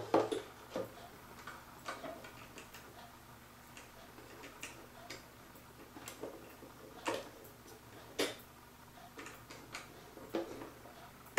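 Faint ticking of a vintage kitchen clock's movement, roughly two ticks a second, some ticks much louder than others, mixed with small clicks from the dial and hands being pushed into place.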